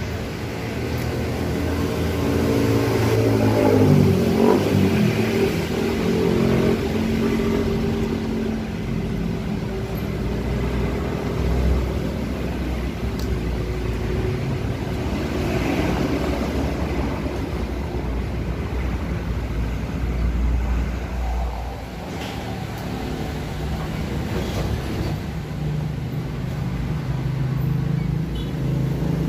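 Small motor scooter engine running and being revved, rising in pitch about four seconds in and then running on with shifting engine speed.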